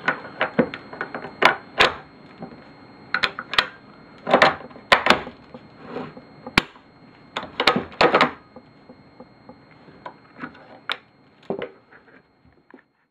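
Sharp metallic clicks and clacks of an Arisaka bolt-action rifle's bolt and action being worked and handled, in several quick clusters.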